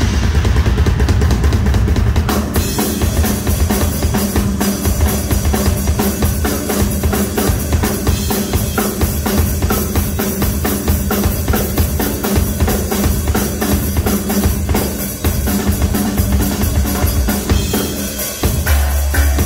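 Live drum solo on a chrome Ludwig kit with twin bass drums. From about two seconds in, the playing turns into fast, dense strokes across the drums and cymbals, and a deep, heavy low sound comes back near the end.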